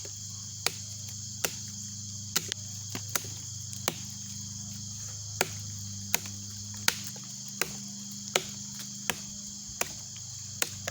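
A camping knife chopping into cedar: about fifteen sharp strikes at a steady pace, roughly one every three-quarters of a second, taking big chunks out of the wood. A steady chorus of insects chirrs behind the strikes.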